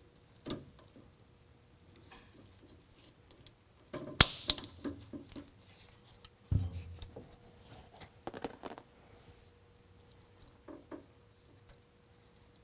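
Handheld tubing cutter snipping through the air bag kit's air line: a sharp snap about four seconds in, followed by a thump and light clicks and rustles as the cut line and T-fitting are handled.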